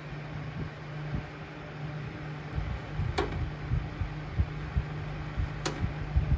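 Cen-Tech heavy-duty battery charger running unloaded at full line voltage: its cooling fan running and a steady low hum from the transformer. Two sharp clicks come about three and five and a half seconds in.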